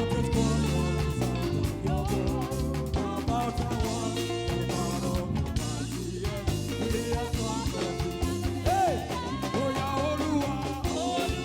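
Live church praise band playing an upbeat African gospel praise song, with a steady drum beat, bass and guitar, and voices singing along.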